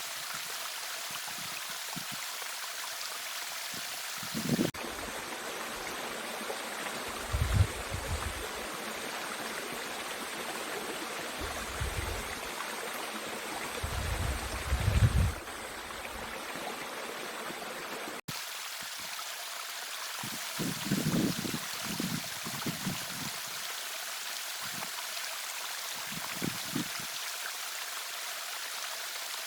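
Mountain stream rushing steadily over rocks, with a few short low thumps that come and go.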